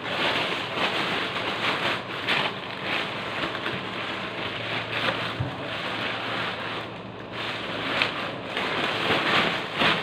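Thin plastic bag rustling and crinkling irregularly as a bundle of long green stalks is pushed into it.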